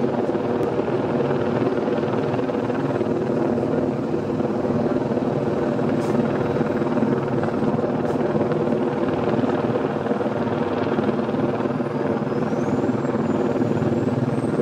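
A steady engine drone that holds an even pitch and level throughout.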